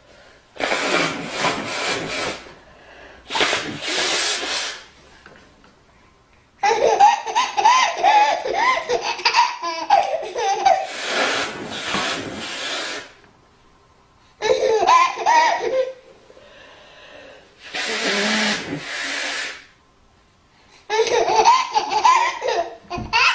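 A woman blowing her nose four times, each blow a second or two of rushing noise, and a baby laughing in bursts between the blows.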